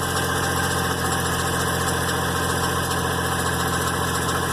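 GMC Envoy engine idling steadily in park, with a metallic noise the owner places up in the engine fan, which he doesn't like the sound of.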